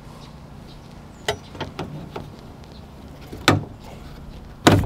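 A few scattered sharp clicks and knocks as a belt molding puller tool is handled and worked against the outer belt molding along the car door's window line. The loudest is a double knock near the end.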